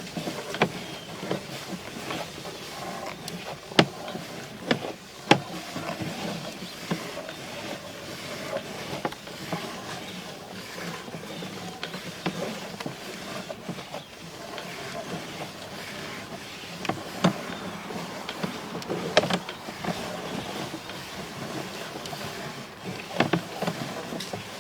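Steady mechanical running noise with scattered sharp knocks, about five in all, as a sewer inspection camera is pushed along the pipe, its head and push rod knocking at pipe joints.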